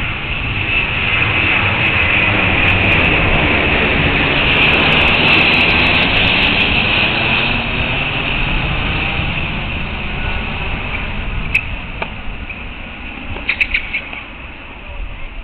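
Aircraft passing overhead: a steady rushing noise that swells for about five seconds and then slowly fades. Near the end come a few sharp tennis ball strikes.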